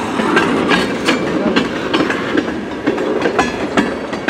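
Tank cars of a freight train rolling past slowly as the train brakes to a stop, wheels clacking irregularly over the rail joints with short metallic squeals mixed in.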